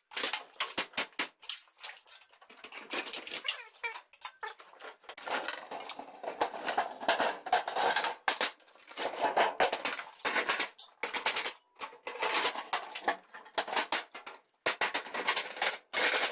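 Rapid, irregular metallic clanks and bangs, many sharp strikes in quick clusters with short pauses.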